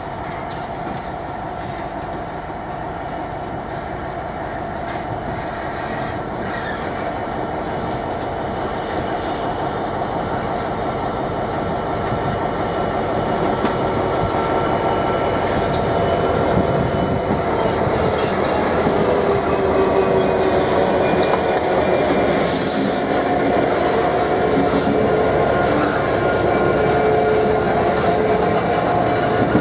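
Class 66 diesel-electric locomotive with its EMD two-stroke V12 engine, pulling away under power with a train of car-carrier wagons, growing steadily louder as it draws up and passes. A thin high wheel squeal from the rails comes in about two thirds of the way through.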